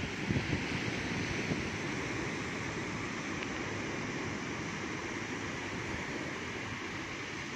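Sea surf breaking and washing up a sandy beach, a steady rush, with wind buffeting the microphone.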